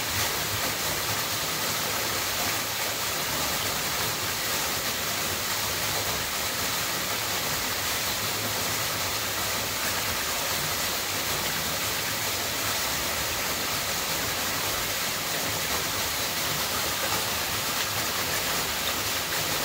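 Small waterfall falling from a rock ledge into a shallow pool: a steady, even rush of splashing water.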